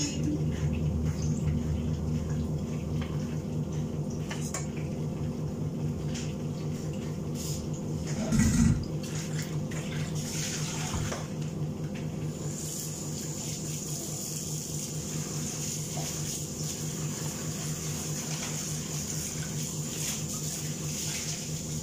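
Steady hum of a range-hood extractor fan with a hiss over it from the pan on the lit gas burner, where chicken is frying. A short thump about eight and a half seconds in, and a few light clicks.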